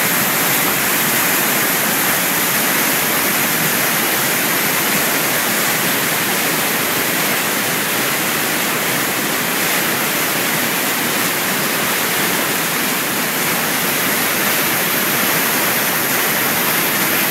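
Athabasca Falls: a large volume of river water pouring over the falls and churning below, a loud, steady rushing.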